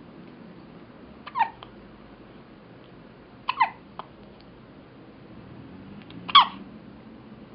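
A 2½-week-old newborn baby hiccuping three times, every two to three seconds, the last hiccup the loudest.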